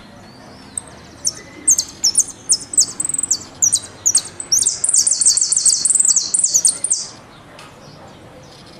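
Argentine jilguero (saffron finch) singing: a string of high, sharp, down-slurred notes that packs into a dense rapid trill about four and a half seconds in, stopping about seven seconds in.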